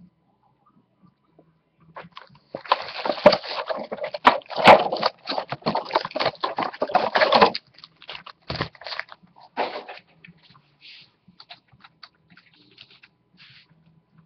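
Clear plastic packaging crinkling and rustling hard for about five seconds as it is crumpled and handled, then a few scattered crinkles and light knocks.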